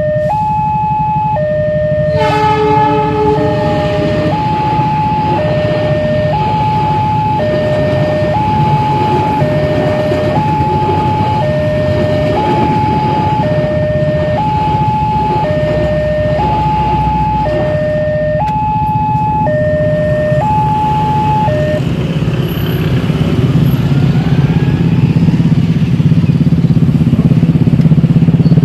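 Level-crossing warning alarm sounding an electronic two-tone chime, alternating high and low tones each about three quarters of a second long, over the steady rumble of a passing passenger train. A short horn blast comes about two seconds in. The alarm stops about three quarters of the way through, and motorcycle engines grow louder near the end as the waiting riders cross.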